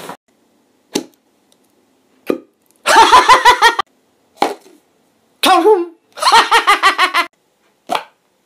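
A man's voice in short bursts of rapid, bouncing laughter-like syllables, with a single cry falling in pitch near the middle and silent gaps between; a few brief blips stand alone about a second, two seconds and eight seconds in.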